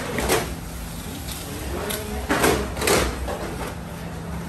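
Steel baking trays of pav dough being slid and set down onto a stack: a few metallic clanks and scrapes over a steady low hum.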